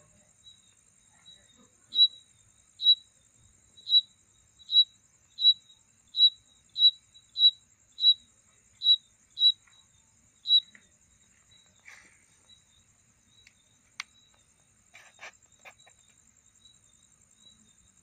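A cricket chirping loudly: single high, clear chirps a little under a second apart, which stop about ten seconds in. The chirps are a mating call. A steady, high-pitched trill runs behind them throughout.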